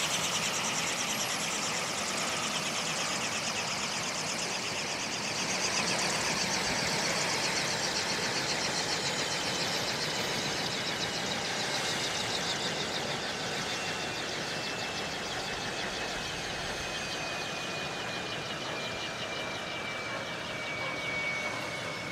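Sikorsky VH-60 Marine One helicopter's twin turboshaft engines whining as they wind down, the whine falling slowly in pitch while the main rotor slows after shutdown.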